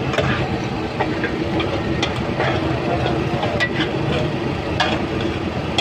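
A steady low roar with a few sharp metallic clinks as raw liver is tipped from a metal bowl onto a large flat steel griddle.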